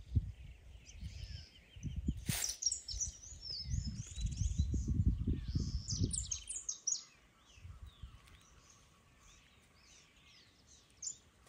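Many small birds chirping and calling over heavy low rumbling handling noise. There is one sharp click about two seconds in. The rumbling stops about two-thirds of the way through, leaving only the birds.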